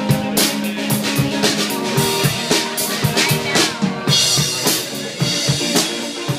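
A live rock band plays an instrumental passage. The drum kit keeps a steady beat of bass drum and snare hits under sustained guitar and bass notes.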